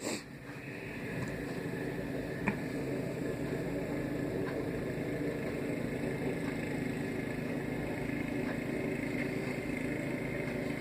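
A steady mechanical hum that builds over the first second and then holds level, with a faint click about two and a half seconds in.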